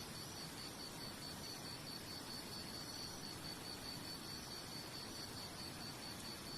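An insect chirping in fast, even high-pitched pulses over a steady hiss.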